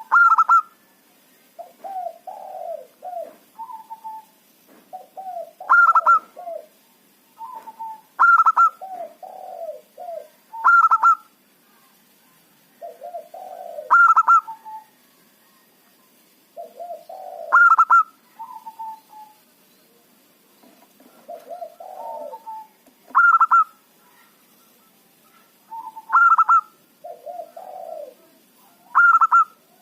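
Zebra dove (perkutut) singing: about ten repeated cooing phrases, each a loud, sharp high note followed by lower, rolling coos, with short pauses between phrases.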